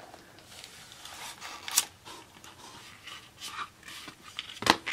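A cardboard slipcover sliding and rubbing off a clear plastic disc case, with scattered light clicks of the case being handled. There is a sharp click a little under two seconds in and a louder knock just before the end.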